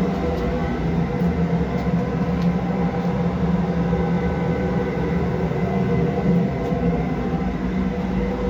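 Steamtherm Comax Plus gas-fired steam boiler running, a steady burner and blower hum with a constant low tone.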